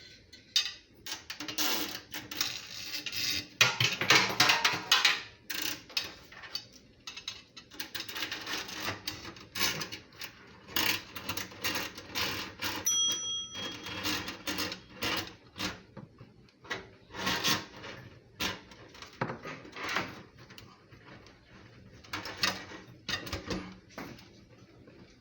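Kitchen faucet parts being handled and fitted by hand: irregular clicks, knocks and rubbing, with one brief metallic ring about halfway through.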